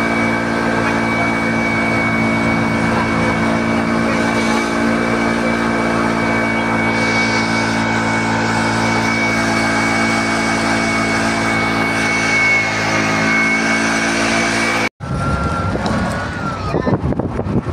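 Engine of a moving road vehicle, heard from on board, running steadily at an even speed as a constant drone. About 15 seconds in it cuts off abruptly and gives way to rougher wind and road noise.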